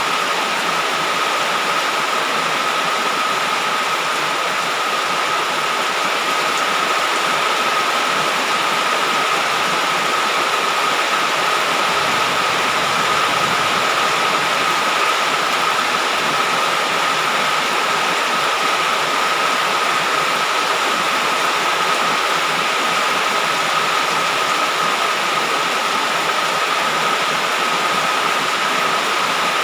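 Heavy rain falling steadily: a dense, unbroken hiss, with a thin, steady high-pitched tone running through it.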